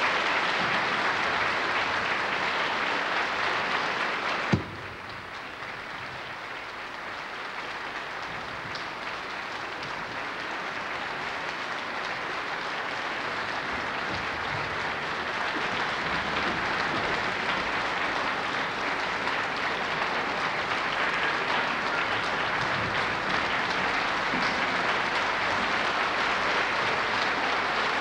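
Audience applauding, a dense steady clapping. About four and a half seconds in there is a sharp click and the applause drops in level, then slowly grows louder again.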